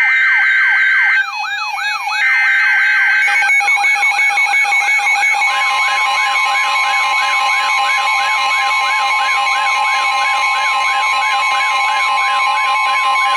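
Emergency Alert System data bursts, a harsh two-tone warble, sound twice, with a quick, repeating up-sweeping siren yelp laid over them. About five seconds in, a steady single-pitch alert tone near 1 kHz starts and holds under the yelping siren. This is the NOAA Weather Radio alert tone that opens a warning broadcast.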